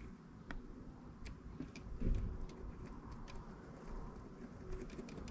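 Scattered light, irregular clicks and ticks from handling small parts, with a soft low thump about two seconds in.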